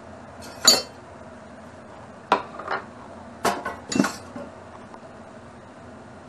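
Cookware and utensils clinking and clanking as they are put into a kitchen sink already holding metal pots and a glass: about six sharp knocks, the first about a second in and the last about four seconds in.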